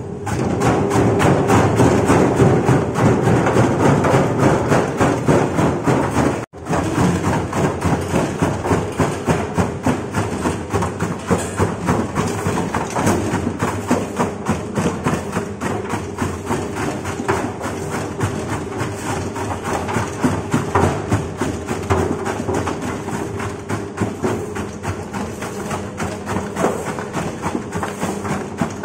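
Porang (konjac) slicing machine running, its motor humming steadily under a rapid, continuous clatter of knocks as tubers are chopped. The sound cuts out briefly about six seconds in, then resumes.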